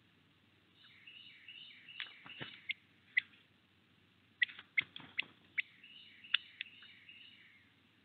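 Small songbirds calling at a bird feeder: a series of short down-slurred chip notes in two runs, with sharp clicks and taps mixed in, loudest in the middle.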